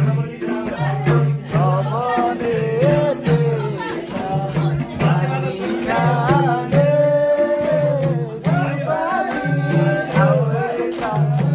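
A song: singing over a steady, repeating drum beat.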